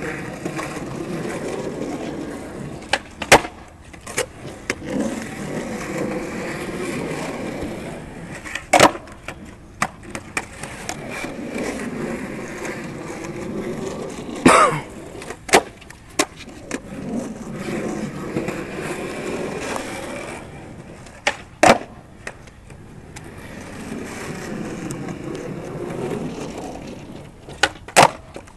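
Skateboard wheels rolling on a concrete sidewalk in a rumble that swells and fades. Now and then the board cracks sharply as it pops and lands on the concrete, about eight times.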